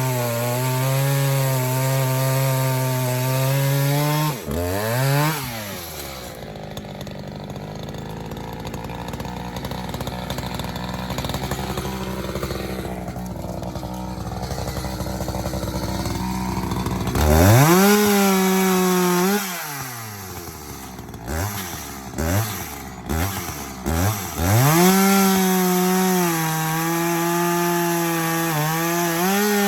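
Chainsaw fitted with a full-chisel, low-kickback safety chain, running at high speed under load as it cuts wood. About 5 seconds in it drops to a low idle for roughly ten seconds, then it is revved, blipped several times, and held at high speed again before letting off near the end.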